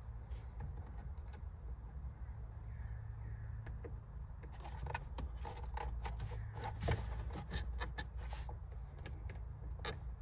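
Irregular small clicks, taps and scrapes of a screwdriver and screw against plastic trim, starting about halfway through, over a steady low hum.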